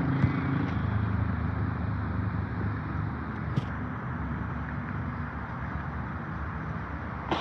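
Low engine rumble with a steady hum, fading slowly, with a faint click about three and a half seconds in.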